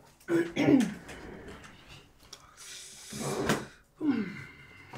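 A woman's wordless vocal sounds: short exclamations that fall in pitch, about half a second in and again about four seconds in. Between them a breathy rush of air builds to a sharp, loud burst about three and a half seconds in.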